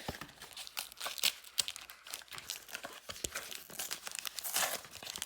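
Plastic and cardboard blister packaging of a Pokémon card pack being pried and torn open by hand: irregular sharp crinkles and crackles, with a short tearing rip about four and a half seconds in.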